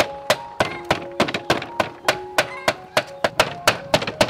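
Cleaver chopping on a wooden cutting board, steady knocks about three a second.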